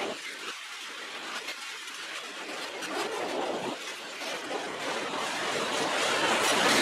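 A freight train rolling past on steel rails: a steady rush of wheel-on-rail noise with occasional sharp clicks, growing louder toward the end.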